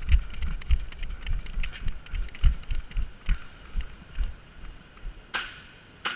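Repeated low thumps, about two a second, typical of running footfalls jolting a worn microphone, under scattered sharp clicks of airsoft guns firing. Two louder, sharper airsoft shots come near the end.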